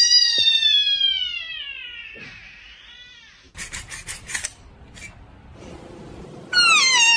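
Domestic cat meowing: a long drawn-out meow falling in pitch, a shorter one a couple of seconds later, then a second loud falling meow near the end. Between them, a quick run of sharp scratchy clicks.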